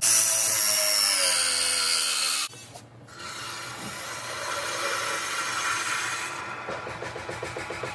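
Battery-powered pipe press tool running as it crimps a press fitting onto copper pipe, its motor pitch falling as the jaws close, then stopping suddenly about two and a half seconds in. Quieter handling noise follows.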